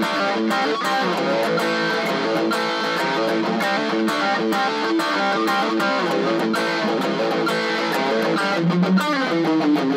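Electric guitar, a Fender Stratocaster, played with a pick: an unbroken stream of quick picked notes running through a riff.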